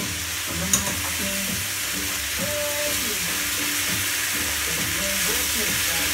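Risotto rice sizzling in a hot frying pan as seafood stock is poured in and a wooden spoon stirs it through. A single sharp knock sounds about a second in.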